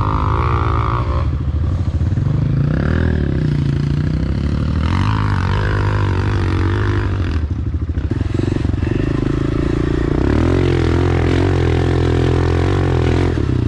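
2023 Honda CRF250RX dirt bike's single-cylinder four-stroke engine running under load on a hill climb, its pitch rising and falling repeatedly as the throttle is worked, then holding a steadier, higher note for the last few seconds.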